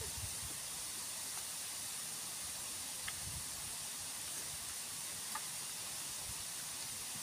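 Steady high-pitched hiss of outdoor background, with a few faint ticks and soft low thumps.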